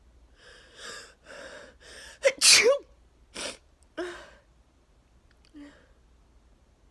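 A person building up to a sneeze with a few gasping intakes of breath, then one loud sneeze, followed by a couple of shorter breathy bursts. It is part of an allergy sneezing fit set off by freshly cut grass.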